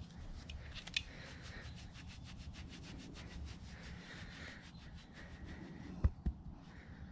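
Fingers scratching and rubbing a goat's short coat close to the microphone: a fast, even run of short rubbing strokes, several a second. Two dull thumps come close together about six seconds in.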